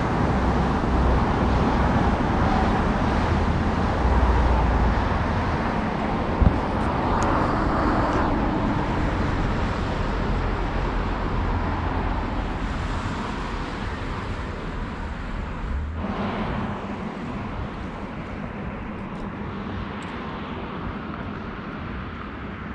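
Steady rumble and hiss of distant road traffic, slowly fading over the last third, with one short knock about six seconds in.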